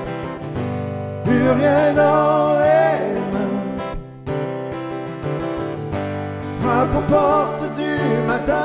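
Acoustic guitar strumming a steady rhythm, with a wordless wavering vocal melody over it in two phrases, the first about a second in and the second near the end.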